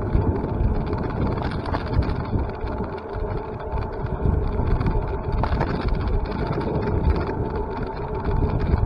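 Steady road and wind noise from travelling along a road, a continuous low rumble with a faint steady hum over it.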